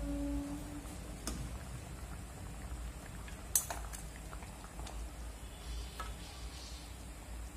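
Chicken curry simmering in a pan on a gas stove, over a steady low hum, with a few sharp clicks of a metal spoon against the pan; the loudest click comes about three and a half seconds in.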